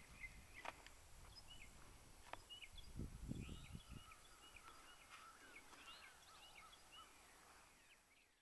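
Faint bird calls: a run of short, high chirps repeating a couple of times a second, with a brief low rumble on the microphone about three seconds in.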